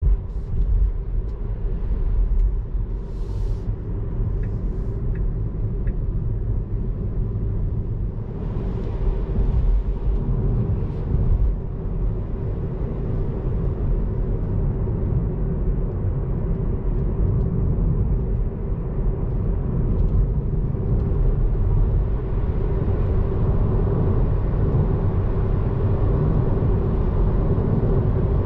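Car driving on a road: a steady low rumble of road and tyre noise with a faint constant hum above it. A few faint ticks come about five seconds in.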